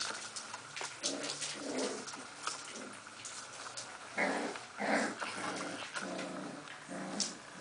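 Young puppies play-fighting, giving a string of short growls and yaps, the loudest pair about four and five seconds in.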